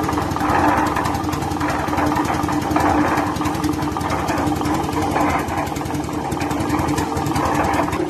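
Concrete mixer's engine running steadily at an even speed, with a fast, regular beat over a constant hum.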